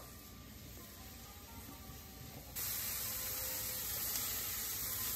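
Mushrooms sizzling in a hot non-stick frying pan, a steady hiss that becomes suddenly louder about two and a half seconds in and then holds steady.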